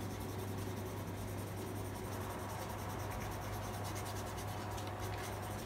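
Paintbrush scratching across sketchbook paper in quick, short dry-brush strokes, a rapid, even run of scratches, over a steady low hum.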